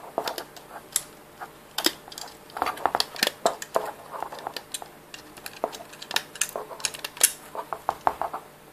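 Irregular light clicks and taps of a hook and elastic bands against the plastic pegs of a Rainbow Loom, as the bands are worked off the pegs.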